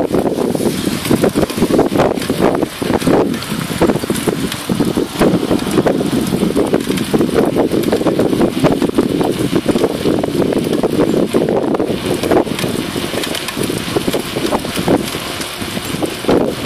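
Steady rumble of a bicycle rolling on an asphalt road, with frequent small knocks and rattles carried straight into a camera mounted on the handlebars, and wind buffeting the microphone.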